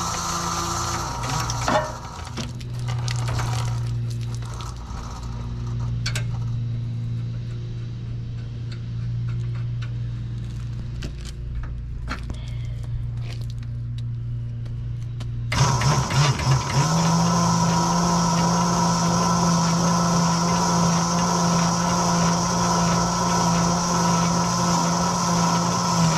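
An engine running steadily, with scattered knocks and clatter over it; about fifteen seconds in the sound jumps louder and the engine note steps up in pitch and holds there.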